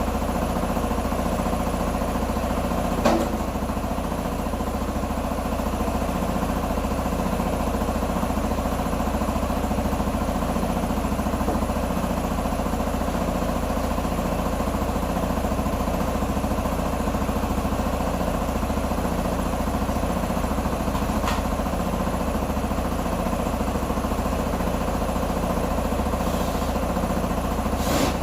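Q2 125 Dynamic motorcycle's 125 cc engine idling steadily, with a brief click about three seconds in and another near the end.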